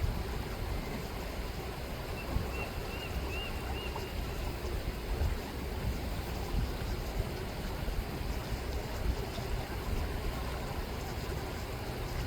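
River water rippling steadily, with a low, gusting rumble of wind on the microphone. About two and a half seconds in, a bird gives four faint, short high calls in quick succession.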